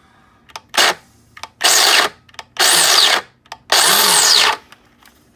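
Mr. Coffee burr coffee grinder's motor grinding beans in four short bursts, each cutting out after less than a second instead of running on. The owner suspects a fault in the grinder's timer.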